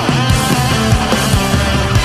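Background rock music with heavy distorted guitars and a steady drum beat.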